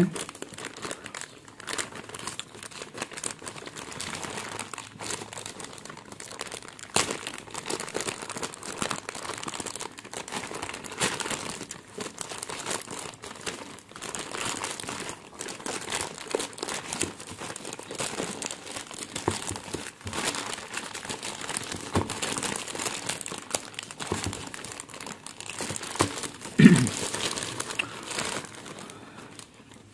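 Plastic courier mailer bag being crinkled and torn open by hand: a continuous run of crackles and rustles, with one louder crackle near the end.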